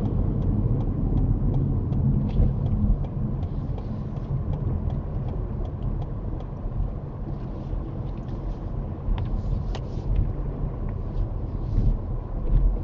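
Low rumble of a car's engine and tyres heard from inside the cabin as it slows to walking pace, with faint regular ticks through the first few seconds and a few louder knocks later on.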